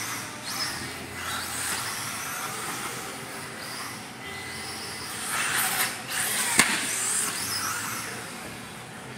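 Electric radio-controlled off-road car running on a dirt track: a high-pitched motor whine that rises and falls as it speeds up and slows, over tyre hiss on the dirt. A single sharp knock sounds about two-thirds of the way through.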